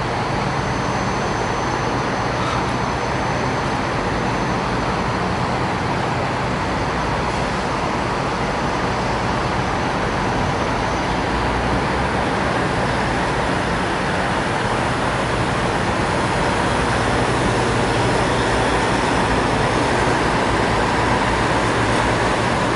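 Steady drone of semi-truck diesel engines running in a truck stop lot, with a low hum under a broad rumble. It grows a little louder near the end as a tractor-trailer drives toward the microphone.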